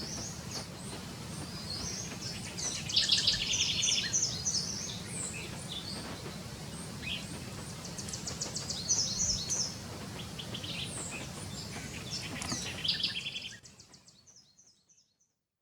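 Several birds chirping and trilling in short, repeated calls over a steady low background rumble. The sound fades out near the end.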